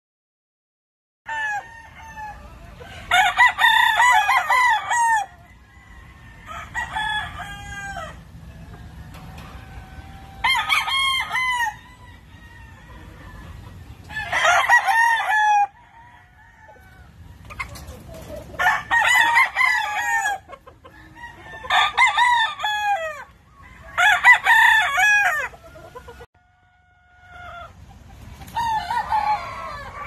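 Gamecocks crowing over and over, about eight crows spaced a few seconds apart, starting about a second in.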